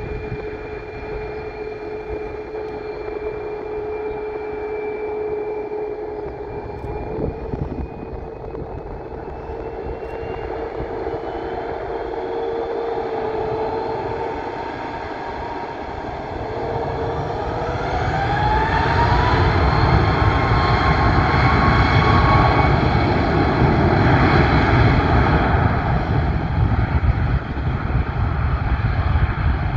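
Ryanair Boeing 737 MAX 8-200's CFM LEAP-1B turbofan engines running with a steady whine. About 17 seconds in, the whine rises in pitch and the roar grows louder as the engines spool up to takeoff thrust.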